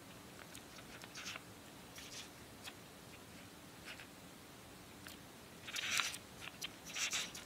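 Pages of a book being turned by hand: light paper rustles, with two louder page turns near the end.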